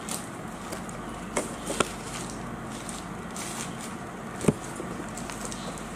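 A cardboard takeaway burger box being opened and handled: a few light knocks and paper or cardboard rustles, the sharpest knock about two-thirds of the way through, over a steady low hum.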